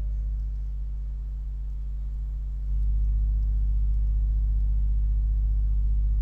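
Steady low hum that steps up in loudness a little under three seconds in.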